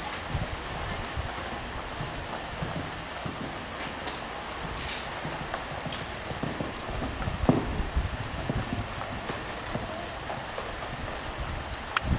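Pouring rain falling steadily, with scattered sharp clicks of individual drops.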